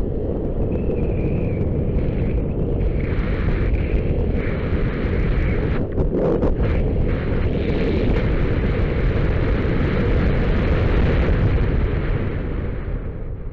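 Wind rushing over the camera microphone as a skydiver descends under an open parachute, a loud steady rush that dies away near the end as the canopy lands.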